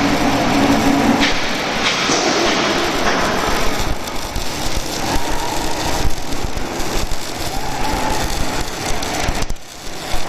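Steady, loud mechanical noise of machinery running, with a brief dip near the end.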